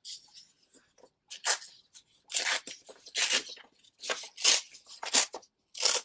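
A sheet of paper being torn by hand in several short rips, tearing off a piece.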